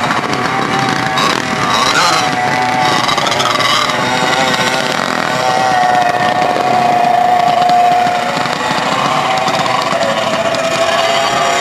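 Racing go-kart engine revving high, its pitch wavering up and down as the kart spins and slides, with the strongest, steadiest stretch in the middle.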